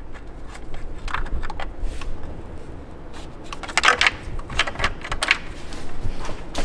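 Light clicking and rattling of plastic and metal parts in an engine bay as the new camshaft position sensor's wire is fished back through, with a denser burst of clicks about four seconds in.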